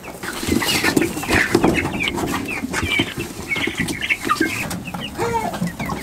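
A flock of young chickens clucking and giving many short chirping calls, over rustling and knocking from handling.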